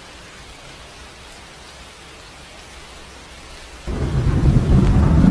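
Steady rain-like hiss, then about four seconds in a sudden loud, deep rumble that keeps building.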